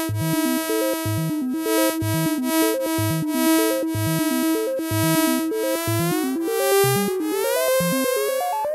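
Yamaha CS-30 analog synthesizer playing a repeating pattern of short low notes under a held, bright note, with regular pulses of hiss. About six seconds in, the held note begins to glide slowly upward in pitch.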